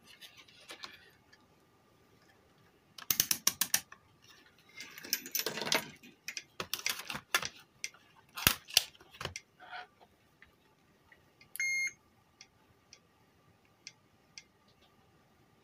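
Workbench handling noise: clicks, rattles and knocks as a power supply circuit board is turned over and set down and a digital multimeter's rotary switch is clicked. About three quarters of the way through comes one short electronic beep from the multimeter, then light ticks of test-probe tips touching the board.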